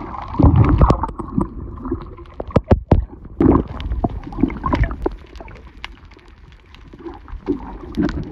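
Water sloshing and gurgling around an underwater camera, with irregular sharp clicks and knocks.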